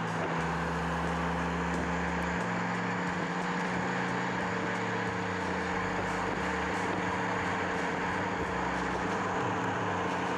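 A car driving at speed, a steady rushing noise of tyres and wind.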